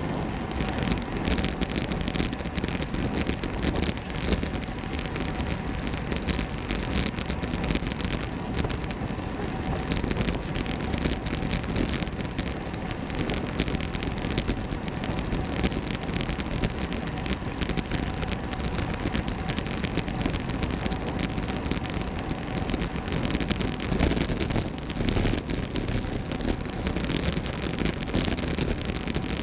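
Wind buffeting the microphone of a camera mounted on a road bicycle riding at about 20 mph, with road and tyre rumble and constant crackling rattle.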